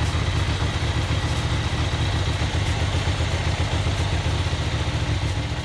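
2007 Ducati Monster 695's air-cooled L-twin engine idling steadily. It is running again after a no-start fault caused by bad solder joints in the fuel pump wiring.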